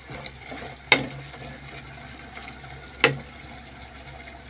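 Chicken adobo simmering in an aluminium pot, with two sharp knocks about two seconds apart as the ladle strikes the pot.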